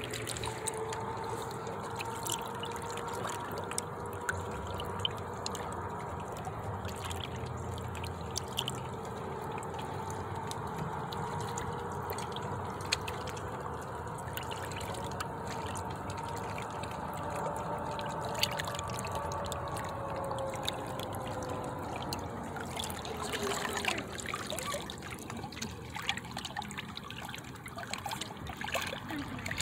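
Lake water lapping and trickling in small irregular splashes and clicks, with a faint steady hum in the background that fades out about three quarters of the way through.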